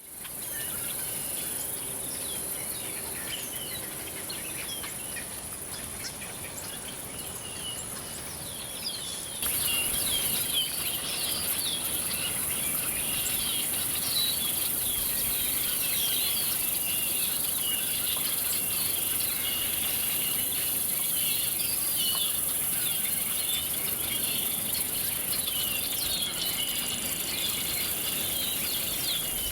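Outdoor chorus of insects holding a steady high-pitched drone, with many short bird chirps and calls over it. The whole sound steps up louder about nine seconds in.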